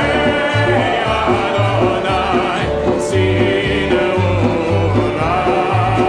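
Group of voices singing a Jewish liturgical melody, accompanied by acoustic guitar, plucked upright bass and hand drum; the bass notes fall in a steady beat of about two a second.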